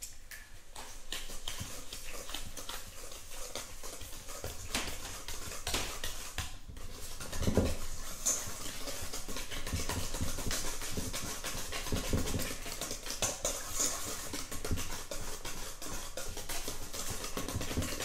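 Wire whisk beating eggs and sugar in a stainless steel bowl: a fast, continuous scraping and clicking of the wires against the metal. There is a couple of duller knocks partway through.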